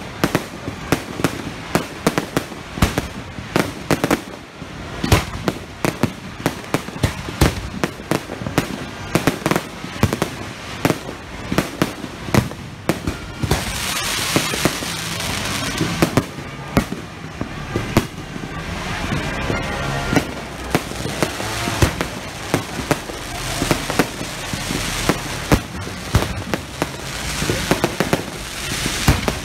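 Fireworks going off in rapid succession: a dense run of bangs and pops several times a second. About halfway through, a steady hiss of sparks rises under the bangs.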